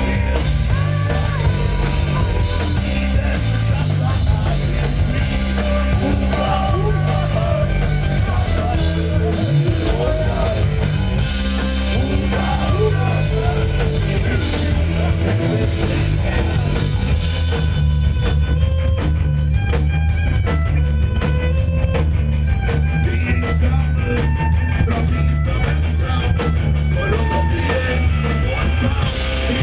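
Live rock band playing loud: a singer over electric guitar, bass guitar and drum kit.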